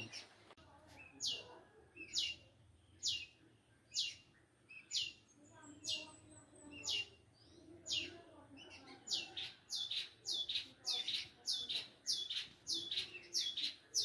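Long-tailed shrike (cendet) calling: a short high note falling in pitch, repeated about once a second, quickening to about two a second in the second half.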